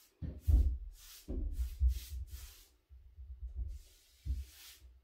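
Several dull low thumps and bumps, the loudest about half a second in and through the middle, with short soft swishes between them, like a paintbrush stroking along wooden door trim.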